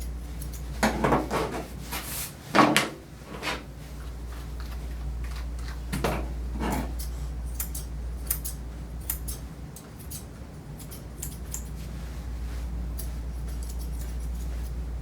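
Light metallic snipping and clinking as a dog is groomed, with a few louder scuffles and knocks in the first seconds and near the middle, over a steady low hum.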